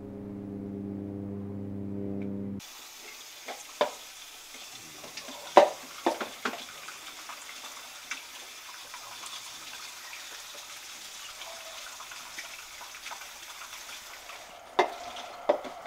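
A low steady drone cuts off sharply about two and a half seconds in. Then a tap runs into a sink with a steady hiss, broken by several sharp clinks and knocks, as of dishes or objects being handled in the basin.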